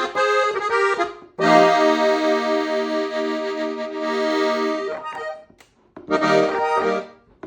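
Gabbanelli accordion playing chords. A few short chords come first, then one long held chord of about three seconds, then a short break and a couple of quick chords near the end.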